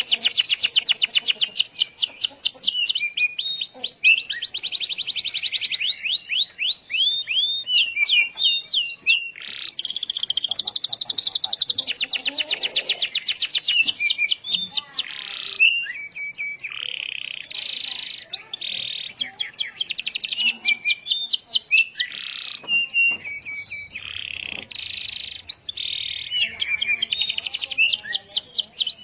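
Domestic canary singing continuously: fast trills of rapidly repeated high notes and rolling phrases, one run following another with hardly a break.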